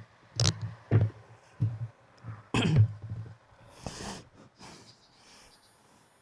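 A man coughing and clearing his throat in several short bursts over the first three seconds, then a few fainter breaths.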